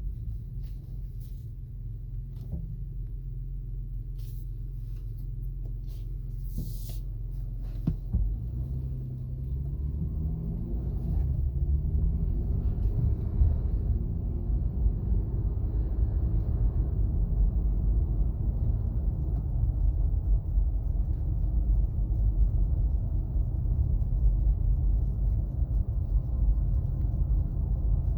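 2017 Acura MDX driving: a steady low hum at first, then road and drivetrain noise rising as it gathers speed from about eight seconds in and holding louder after that. It carries the speed-dependent whine the owner hears, which lowering the tyre pressures has not cured and which he places at the front passenger side.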